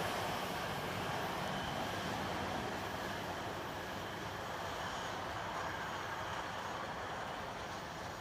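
Hi-rail pickup truck rolling away along the railroad track on its rail wheels: a steady rolling noise that slowly fades as it pulls away.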